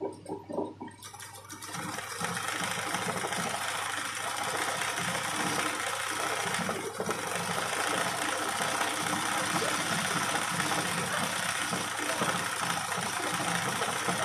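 A machine starts up about a second in and runs steadily to a loud, even noise with a rough rumble underneath.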